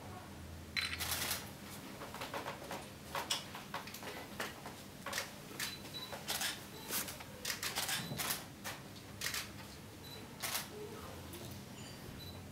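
Camera shutters clicking again and again at irregular intervals, about two dozen short sharp clicks.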